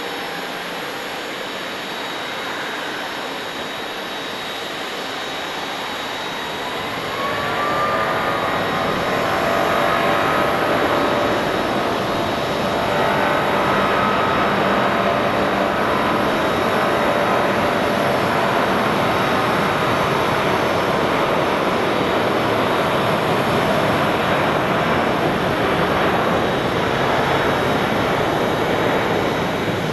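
Jet airliner engines running. A whine rises in pitch about six to eight seconds in, and the roar grows louder, then holds loud and steady with a layered whine.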